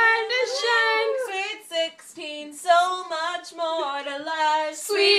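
A girl singing a melody without instruments, holding notes and stepping between them.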